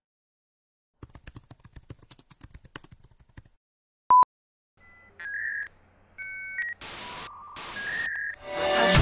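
Computer-keyboard typing sound effect, a run of quick key clicks, then a single short loud beep. A few electronic bleeps follow, with two bursts of static hiss as an error glitch, and near the end a swell rises into music.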